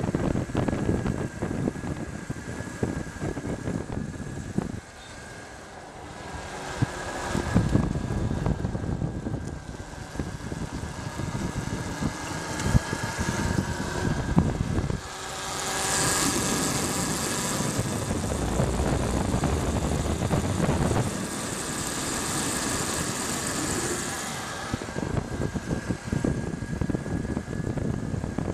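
Ride on an electric-converted motorcycle driven by a Briggs & Stratton E-Tek DC motor at 24 volts: wind rushing over the microphone with road noise, swelling and easing in stretches, over a thin steady high whine.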